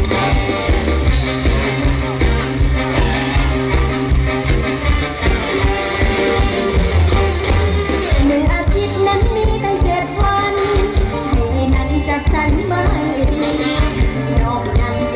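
Thai mor lam band music played loud through a stage PA, with a steady bass beat and a woman singing over it.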